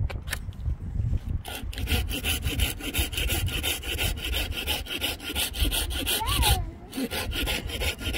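A rapid, even rasping, about five strokes a second, over a low rumble, with a short break near the end.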